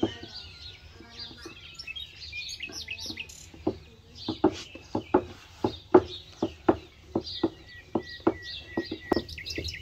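Wooden rolling pin knocking on a wooden board as dough is rolled out, a regular run of short knocks about two or three a second starting a few seconds in, with small birds chirping throughout.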